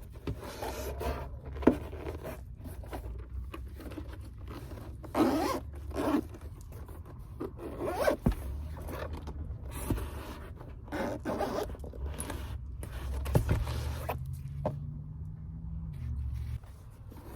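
Irregular scraping and rustling handling sounds, like a zipper or things being moved about, with a few sharp clicks and knocks over a low steady hum.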